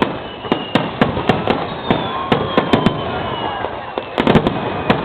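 Aerial fireworks bursting in quick succession: many sharp bangs and crackles, several a second, over a steady rumble, with a few long falling whistles.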